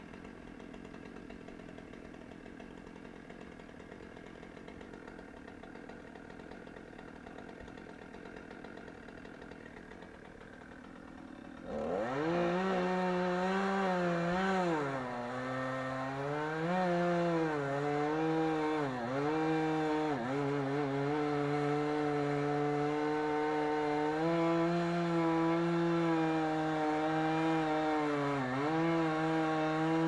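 Chainsaw running on a spruce spar: it idles quietly at first, then about twelve seconds in it is opened up to full throttle and cuts into the trunk, its engine pitch dipping and recovering several times as it works through the wood.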